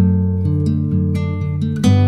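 Background music: an acoustic guitar playing plucked notes and chords over sustained bass notes.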